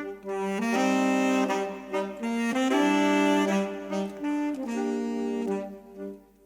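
Saxophone trio playing in harmony, several notes sounding at once, in phrases with short breaks between them. It drops away to a brief pause near the end.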